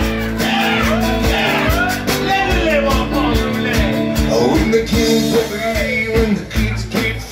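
Live country-rock band playing an instrumental break: guitar, bass and drums, with rapid scraping and rattling from a washboard played as percussion.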